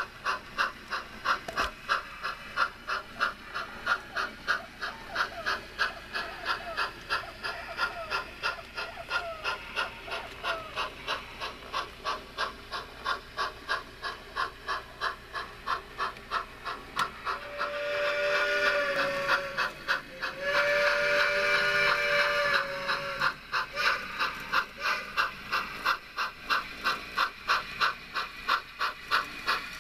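Model steam locomotive sound of a Baldwin 2-6-0 chuffing steadily, about three chuffs a second, with a hiss of steam. About two-thirds of the way through, the whistle sounds two long blasts, as for a road crossing.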